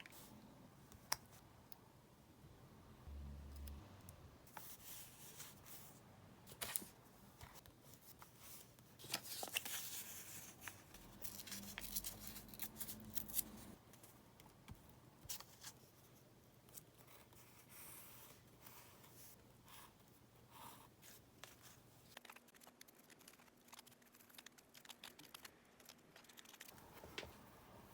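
Faint paper-crafting sounds of diary decorating: scattered small clicks and taps of stickers, tape and paper being handled. A louder stretch of tearing or cutting rustle comes about a third of the way in.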